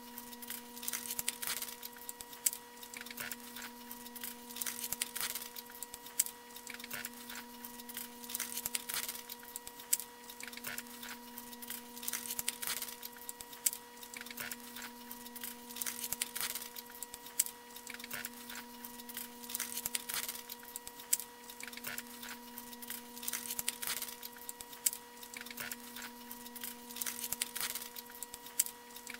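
Blue masking tape being pulled off its roll and wrapped by hand, a run of small irregular crackles and clicks, over a steady hum.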